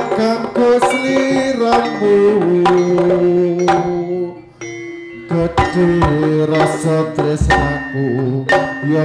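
Live Jaranan ensemble music: sharp drum strokes over a held, stepping melody, easing off briefly past the middle before the strokes pick up again, with a deep boom about three quarters of the way through.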